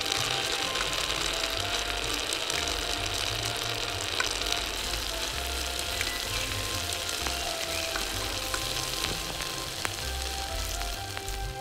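Steady sizzling hiss of prawn curry simmering in a miniature clay pot, with a few light clicks from a tiny metal spoon as prawns are scooped onto a small ceramic dish. Soft background music plays underneath.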